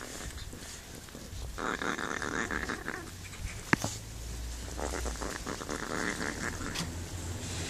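A cat chewing and crunching food close to the microphone, in two spells of a second or two each, with one sharp click about halfway through.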